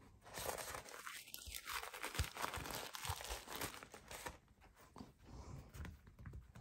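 Crinkly rustling and crunching as hands grip and turn a sneaker with a rubber waffle outsole, densest for the first four seconds and then fading to scattered light handling noise.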